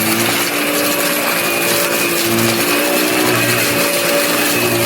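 Bissell Pet Hair Eraser Lift-Off upright vacuum running steadily, a motor hum and whine over a wide rush of air.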